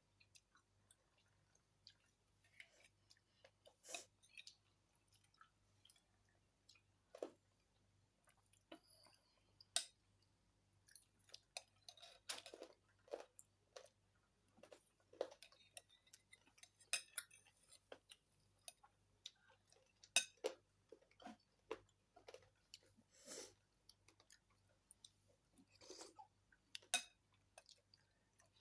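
A person chewing and eating close to the microphone: irregular wet mouth sounds and sharp clicks, a few much louder than the rest.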